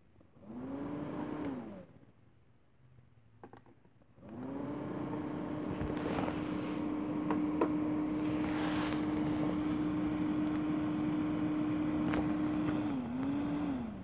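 Small electric fan motor of a homemade air conditioner spinning up briefly and stopping, then spinning up again about four seconds in and running with a steady hum, dipping once and winding down near the end.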